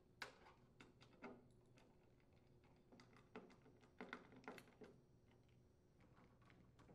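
Faint, scattered clicks and light metallic ticks from a screwdriver turning screws into a trash compactor's sheet-metal bottom panel.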